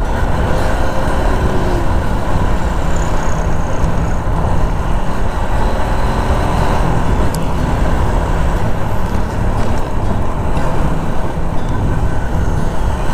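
A motorcycle engine running while riding, with wind and road noise on a clip-on lapel microphone, as a steady dense rumble.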